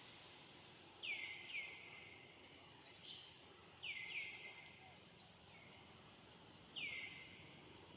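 A bird calling in the background: short whistled notes that fall sharply in pitch, a pair about a second in, another pair near four seconds and a single note near seven seconds. Faint high ticks and outdoor ambience lie underneath.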